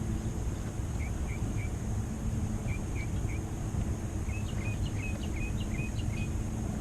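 A bird calling in short, sharp chirps, mostly in quick runs of three, with a longer run about four seconds in. Under it is a steady low rumble.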